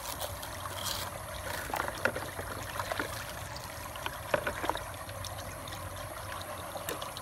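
Water trickling and splashing in a bucket of soapy water as plastic pool grating sections are handled and scrubbed by hand, with scattered light clicks and knocks of the plastic, the sharpest a little past the middle.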